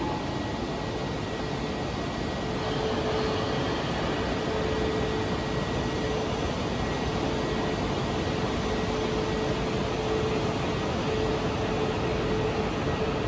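E4 series Max Shinkansen train with a steady rumbling hum and a steady mid-pitched tone that comes in a couple of seconds in, at an even level throughout.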